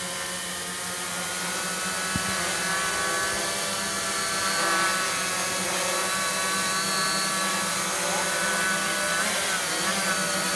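A hexacopter's six brushless motors spinning 11x5-inch propellers while hovering, a steady multi-toned whine and buzz. The several pitches waver slightly near the end as the motor speeds adjust.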